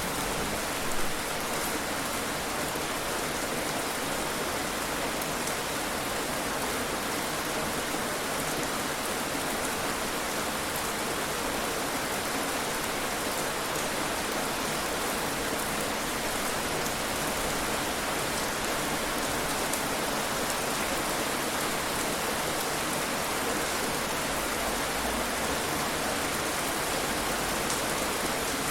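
Heavy rain falling steadily, a dense even hiss of drops hitting a surface, with a brief louder splash or knock about a second in.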